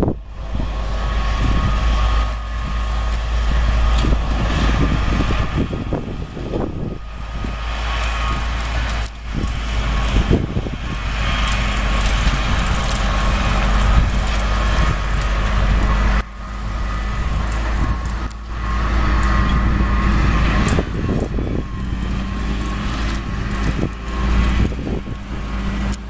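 A Case IH tractor's diesel engine and the sugar beet harvester it pulls, running with a steady mechanical drone and a few constant whining tones. A heavy low rumble of wind on the microphone sits under it, and the sound shifts abruptly a couple of times.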